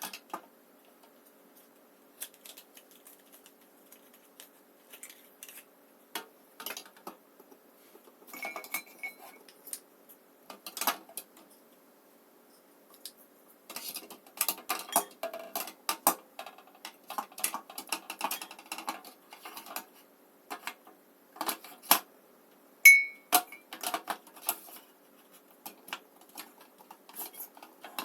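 Lipstick tubes and lip gloss bottles clicking and clinking as they are set one by one into a lipstick organizer: irregular light knocks and taps, busiest in the second half, with a couple of short ringing clinks.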